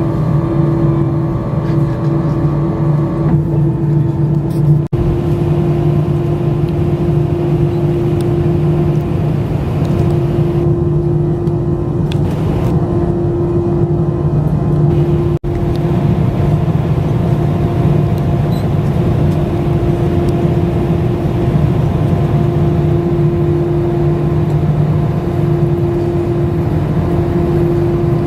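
Steady jet cabin drone of an Airbus A320-family airliner, the engines running with a constant low hum and a higher steady tone, broken only by two very brief dips.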